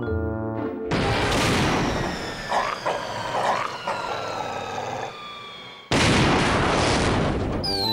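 Cartoon sound effects: a brief musical sting, then a long rushing rumble with falling whistle tones. About six seconds in comes a sudden, loud cartoon explosion that carries on as a sustained blast.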